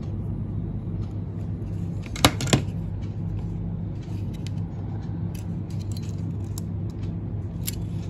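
Two sharp plastic snaps about two seconds in, as the speedometer's LCD is prised free of its white plastic frame, then lighter clicks of the plastic being handled. A steady low hum runs underneath.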